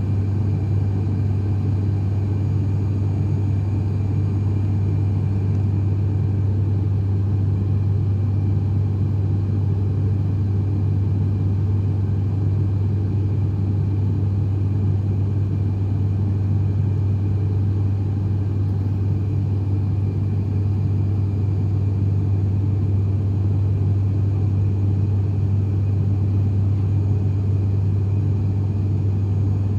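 An ATR 72-500's Pratt & Whitney PW127 turboprop engines and propellers heard from inside the cabin: a loud, steady, unchanging drone with a strong low hum.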